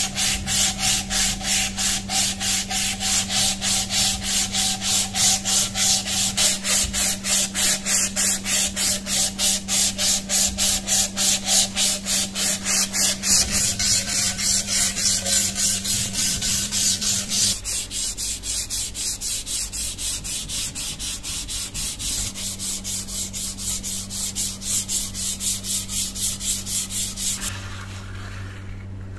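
A strip of sandpaper pulled back and forth around a wooden tool handle, shoe-shine style, rasping in an even rhythm of about three strokes a second. The sanding stops near the end.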